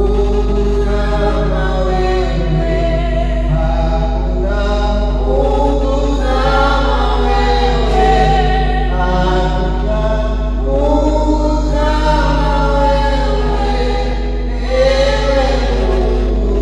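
Choir singing a slow hymn in long, held notes, with a steady low electrical hum underneath.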